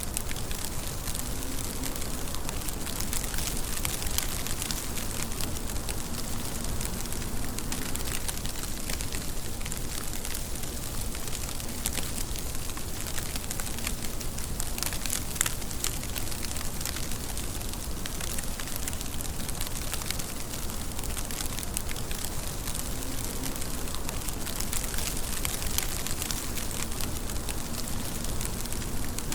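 Steady rain, a dense patter of many small drops over a constant hiss that does not let up.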